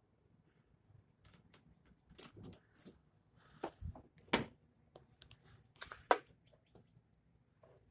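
A dozen or so irregular sharp clicks and light knocks, scattered from about a second in, the loudest around four and six seconds in.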